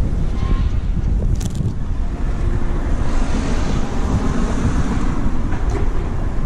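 Wind buffeting a small handheld camera's microphone as a steady low rumble, with street traffic noise underneath.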